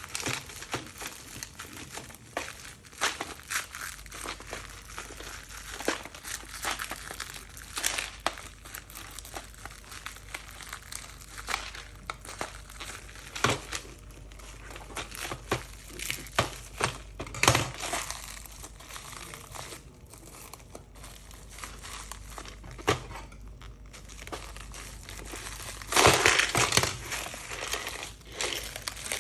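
Packaging crinkling and rustling with scattered clicks and knocks as a returned screwdriver set, its shipping label glued straight onto it, is handled; a louder stretch of crinkling comes near the end.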